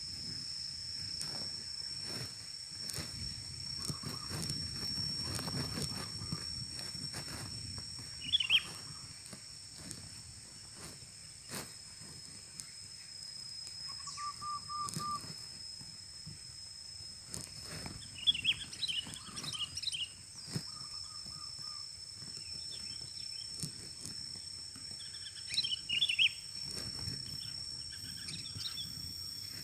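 Sooty-headed bulbuls chirping in short bursts, several times, over a steady high-pitched insect drone.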